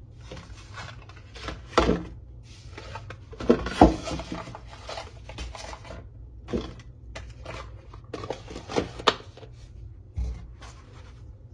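Groceries and containers being handled and set down: irregular knocks, clacks and rubbing, the loudest knock about four seconds in.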